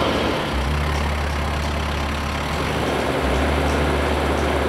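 Case IH compact tractor's engine running with a low, steady drone that shifts slightly about half a second in and again a little after three seconds.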